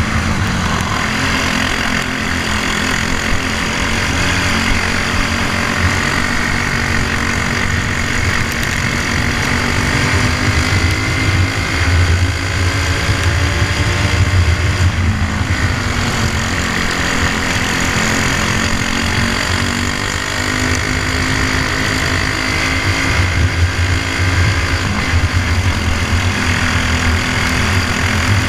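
Briggs & Stratton Animal single-cylinder four-stroke kart engine running hard under race load, heard onboard. Its pitch dips and climbs again a couple of times, over a constant rush of noise.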